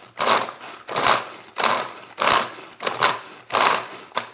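A Tupperware Turbo Chef pull-cord chopper being pulled again and again, about seven quick pulls. Each pull makes a rushing whirr of the cord and spinning insert as garlic cloves tumble in the plastic bowl. The blade guard is on, so the cloves are being knocked about to loosen their skins, not chopped.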